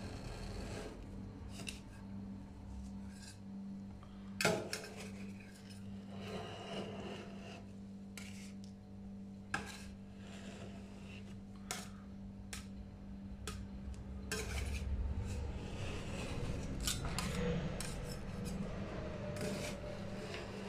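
A metal spatula scraping frozen chocolate ice cream off a stainless steel cold plate and rolling it up. The spatula clicks sharply against the plate a few times, with a steady low hum underneath.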